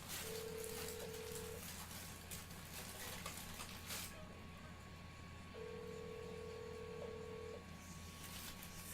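Telephone ringback tone: a steady purring tone that sounds twice, the second about two seconds long, with a four-second gap, over a low electrical hum.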